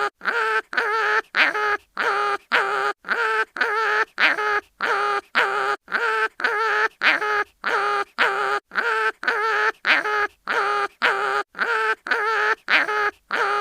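Cartoon animal crying-in-pain sound effect: a short pitched cry repeated at even spacing, about twice a second.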